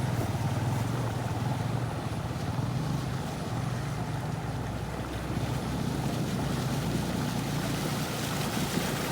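Motorcycle engine running steadily while riding, a low hum with wind rushing over the microphone.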